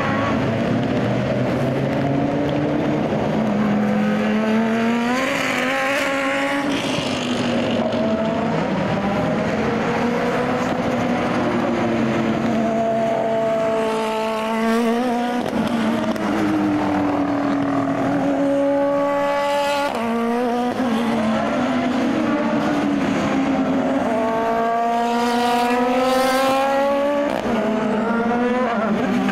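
SUPER GT race cars, among them a Lamborghini Huracán GT3 and a Lexus RC F GT3, accelerating past one after another on a soaking wet track. Each engine climbs in pitch and breaks off at every upshift, over a steady hiss of tyre spray and rain.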